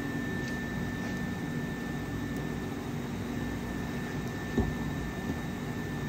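Steady machine hum and hiss of workshop background noise, with a constant thin high whine, and a single knock about four and a half seconds in.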